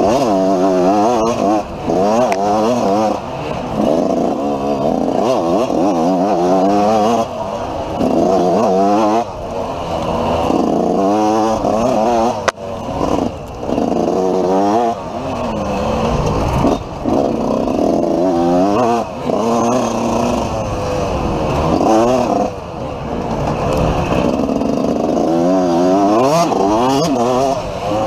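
A 250 cc dirt bike engine under hard riding, revving up and falling off again every second or two as the throttle is worked. One sharp knock comes about twelve seconds in.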